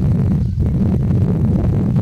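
Wind buffeting the microphone: a loud, steady low rumble that flutters unevenly.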